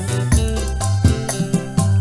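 Live dangdut band playing an instrumental passage: regular drum hits over a bass line and a keyboard organ melody.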